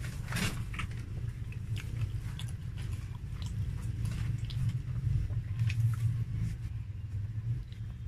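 Close-up chewing of a fried chicken sandwich in a soft bun, with wet mouth clicks and smacks and a louder one about half a second in, over a steady low hum.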